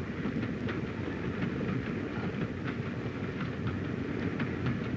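Passenger train running, a steady low rumble with the clicking of wheels over rail joints a few times a second.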